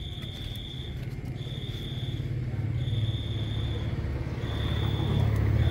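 A motor vehicle engine running with a low, pulsing hum that grows steadily louder. Over it, an insect trills in repeated bursts, each about a second long with short gaps between.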